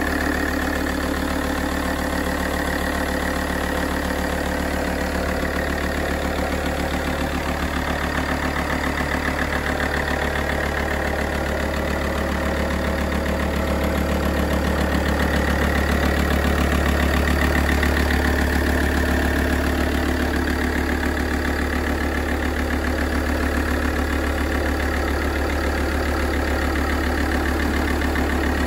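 Alfa Romeo 166 2.4 JTDm five-cylinder turbodiesel idling steadily while warming up, with a diesel's knock.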